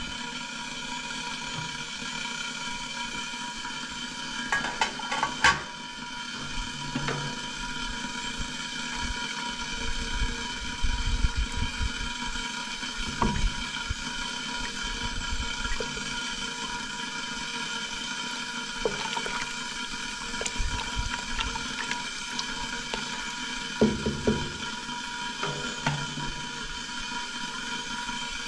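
Soup simmering in a stainless steel pot, a steady watery hiss. The metal lid clinks off about five seconds in, a wooden spoon stirs the soup in the middle, and a few knocks against the pot come near the end.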